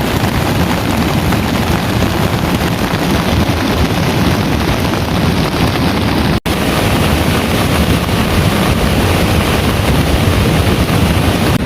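Heavy rain pouring steadily, a dense even hiss with a deep rumble underneath, cut off for a split second about six seconds in.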